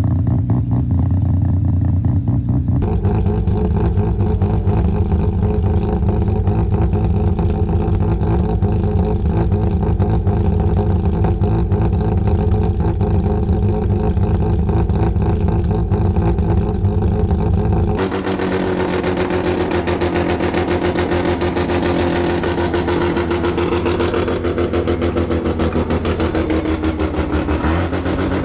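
Mazda 12A rotary engines running steadily with a rapid, choppy brap, heard in three successive clips that cut abruptly about three seconds in and again past the middle; near the end the pitch rises slightly as the engine is revved.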